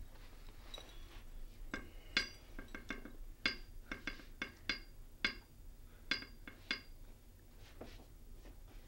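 A metal tool tapping on a pipe in Morse code: a run of sharp, irregularly spaced metallic clinks with a brief ring, fading to a few lighter taps near the end. The taps send a distress-signal reply through the ship's piping.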